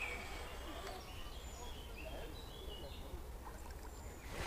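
Small birds chirping and whistling in short, scattered calls over a steady low outdoor rumble of wind and river.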